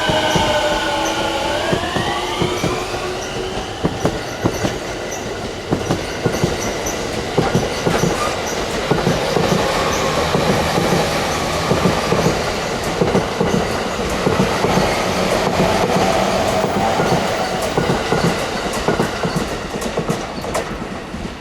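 Electric train moving along the station tracks: a motor whine that drops and then turns upward in pitch over the first two seconds, followed by the steady rumble of the train with wheels clacking irregularly over rail joints.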